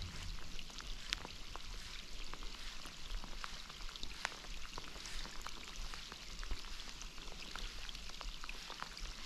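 Steady rain falling on a lake's surface, a constant patter with many scattered sharp drop taps.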